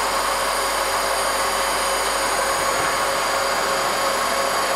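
Grindex BSB 500 PLC external cylindrical grinder grinding a steel shaft under flowing coolant. It makes a steady, even grinding rush with a few faint steady tones.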